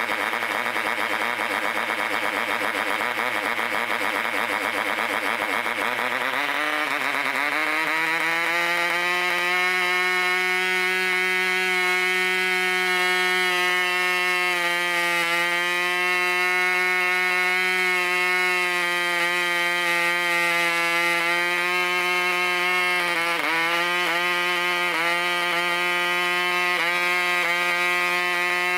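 Vintage 1965 Mikro 3.5cc two-stroke model diesel engine running flat out on a 9x4 propeller, a loud high buzz at about 11,000 rpm. About six seconds in, while the compression screw is being adjusted, the note rises and settles into a steady pitch. There is a brief dip and recovery about 23 seconds in. It is running steadily and cleanly.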